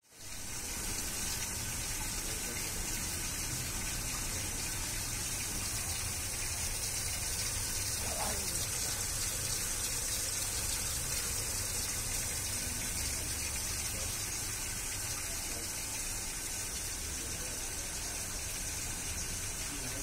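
Umbrella-jet fountain nozzles running, thin bell-shaped sheets of water falling back into the pool with a steady, even splashing rush.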